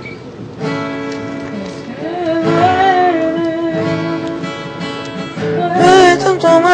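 Acoustic guitar chords with a voice singing a slow Spanish-language ballad. The singing comes in about two seconds in, with long held notes that waver, and is loudest near the end.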